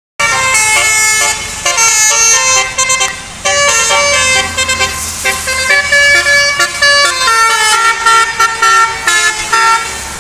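A tour bus's Basuri musical air horn playing a fast tune: several horn tones sound together and step from note to note, with short breaks between notes. It stops near the end.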